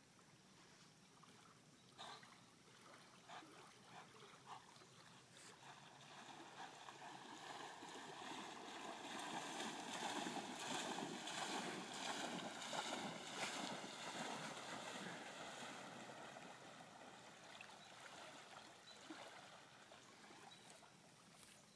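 Faint sloshing and splashing of river water as an Alaskan Malamute swims, swelling for several seconds around the middle and then fading away, with a few faint clicks in the first few seconds.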